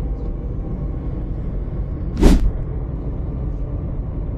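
Steady low rumble of a car's engine and tyres on the road, heard from inside the cabin while driving. One short, loud noise comes about two seconds in.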